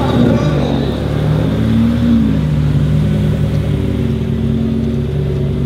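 Turbocharged 2.5-litre five-cylinder engine of a VW Golf 7.5 R, swapped in from an Audi RS3, running at low revs as the car rolls slowly along. The revs rise slightly and fall back about two seconds in, then settle into a steady low idle.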